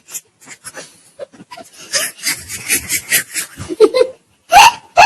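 Breathy, stifled laughter in a run of quick pulses, ending in a couple of short voiced laughs near the end.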